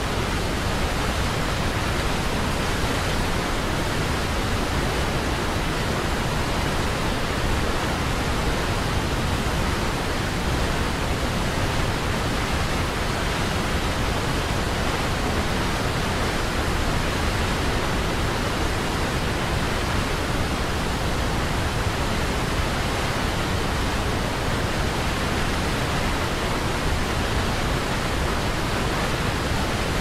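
A small waterfall pouring and splashing over rocks right beside the microphone: a loud, steady rush of water that does not change.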